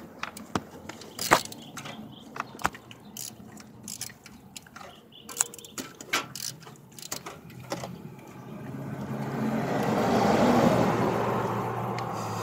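Small 10mm ratchet clicking in irregular bursts and metal tool ticks as a surge-valve bolt is worked loose. In the last few seconds a rushing noise swells up, louder than the clicks, and eases off.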